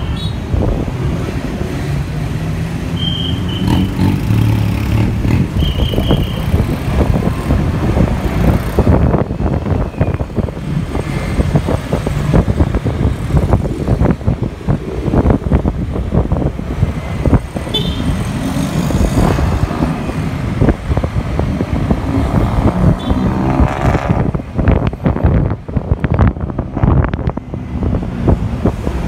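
Riding on a moving motorcycle taxi: wind buffets the microphone with loud, rapid flutter, over the hum of the motorcycle's engine and the surrounding road traffic. A few short high beeps sound now and then.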